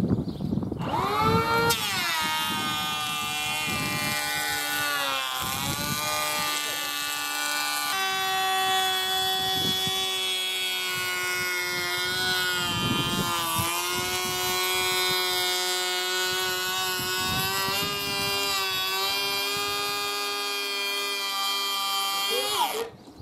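Electric hand planer planing a chamfer along a timber wall plate: the whine rises as it spins up about a second and a half in, runs steadily with its pitch dipping a few times, and winds down near the end.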